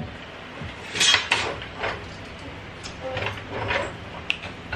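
Hydraulic floor jack being worked under a car to lower it: a handful of short scraping, clunking strokes from the jack and its handle, with a sharp click near the end.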